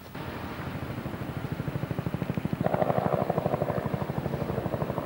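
Helicopter flying by, its rotor beating in a rapid, even pulse. The beat grows louder a little past halfway and cuts off abruptly at the end.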